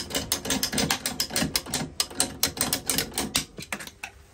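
Fast, irregular run of sharp clicks and knocks, several a second, from a waste pipe and trap being worked by hand; it stops about three and a half seconds in.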